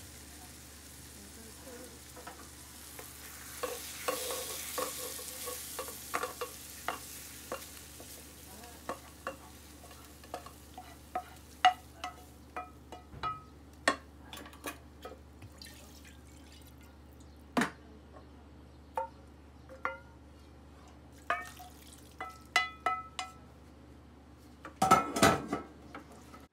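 A spoon scraping and knocking against a frying pan as fried onion and tomato sauce is emptied into a pot of fava beans and potatoes, with a hissing sizzle for the first several seconds. Near the end, a wooden spoon stirs the pot, the loudest knocks.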